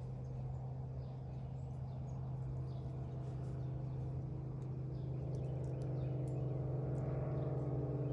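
Faint, short bird chirps over a steady low mechanical hum. The hum grows a little louder over the last few seconds.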